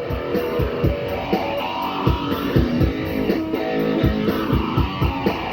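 Music: a guitar-led instrumental passage between sung lines, over a steady low beat.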